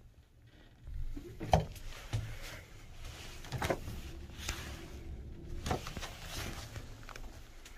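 Low steady rumble in a quiet elevator hall, broken by a few light, scattered knocks and clicks.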